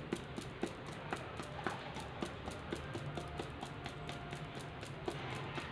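Hands kneading cocoa powder into wheat-flour dough in a bowl: faint, irregular soft taps and clicks.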